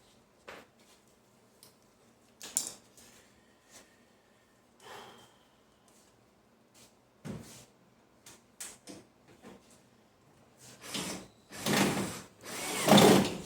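Tools being handled while working on a washing machine: scattered clicks and knocks, then louder rattling and scraping about eleven seconds in.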